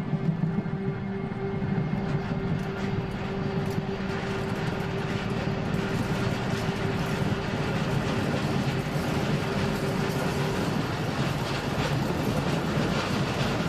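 Electric passenger train running along the track, with steady wheel-on-rail rumble and hiss and light clicks of the wheels over the rails as it gathers speed. A steady hum runs alongside and fades out about ten seconds in.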